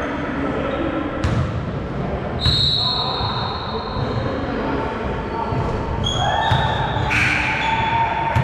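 A basketball bouncing and being dribbled on a gym floor during a pickup-style game, with sharp thuds at intervals, echoing in a large hall.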